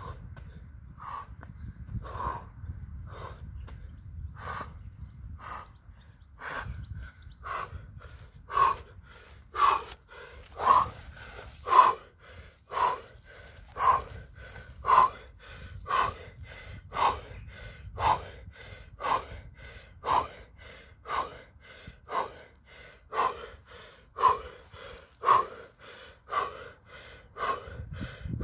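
A man panting hard after an all-out HIIT interval, with loud, regular breaths about once a second. The breaths grow much louder about six seconds in, and a low rumble runs under the first few seconds.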